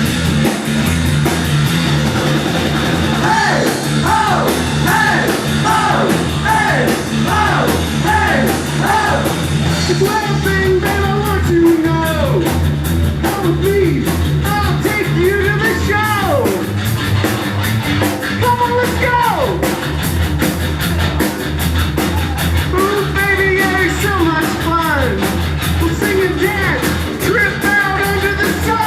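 A rock band playing live with drum kit and guitar, steady and loud. A singer comes in about three seconds in with repeated lines that slide down in pitch.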